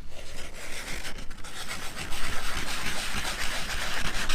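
Brisk rubbing on the rubber tube of an inflatable dinghy around the leak being patched, a steady rough scratchy hiss that grows louder about two seconds in.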